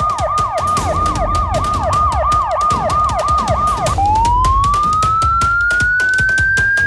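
Police vehicle siren on a fast yelp, about three falling whoops a second. About four seconds in, it switches to a slow wail that keeps rising in pitch.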